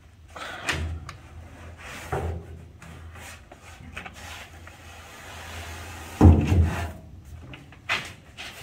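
Folding rear bench seat being rolled down into a vehicle's bare metal floor: a few clunks and rubbing as its metal frame and brackets knock and scrape, the heaviest thump about six seconds in as the seat settles into place.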